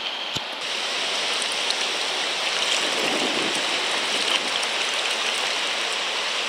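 Whitewater of a river rapid rushing and hissing steadily, heard from a kayak out on the water.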